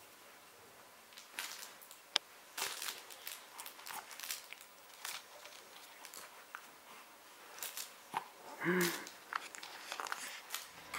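Faint rustling, crinkling and light plastic clicks from a baby's activity play mat and its hanging plastic rings as she grabs and moves on it, with a brief voice sound about nine seconds in.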